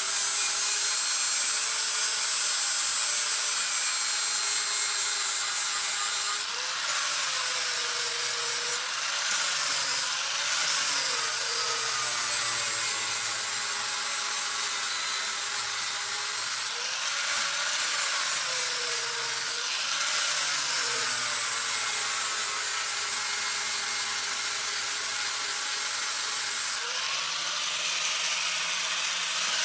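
An electric grinder running against steel with a steady hiss. Its motor pitch sags and recovers several times as it is pressed into the work and eased off.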